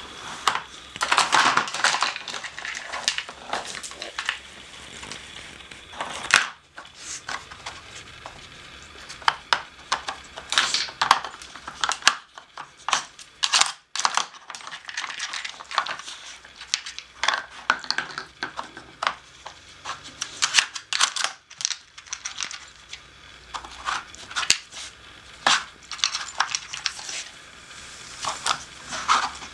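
A dog nosing and pawing at a plastic Nina Ottosson treat puzzle: plastic blocks and lids clatter, click and scrape against the board in irregular bursts, mixed with the crunch of kibble being eaten.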